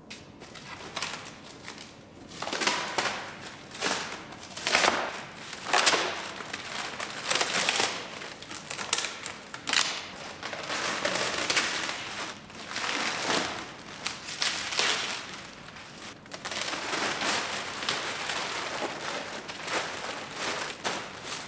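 Plastic sheeting being peeled off a truck's body and balled up, crinkling and rustling in irregular bursts.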